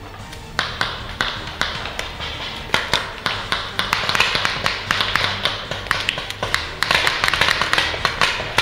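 Paintball markers firing in quick, irregular pops, coming thicker in the second half.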